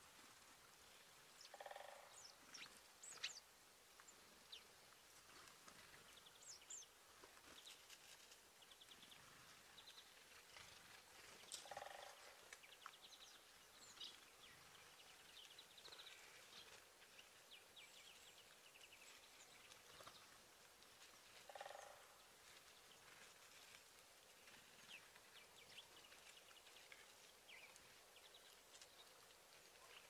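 Faint chirps and calls of small songbirds at a bird feeder, scattered short high notes throughout. A louder, lower call repeats three times, about ten seconds apart.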